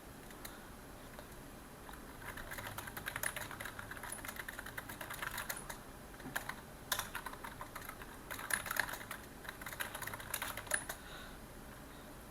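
Typing on a computer keyboard: quick runs of key clicks in bursts, with a few short pauses and the odd harder keystroke, starting about two seconds in and stopping near the end.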